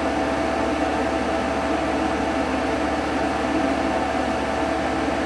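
Steady mechanical hum, like a fan running, with a few constant tones in it.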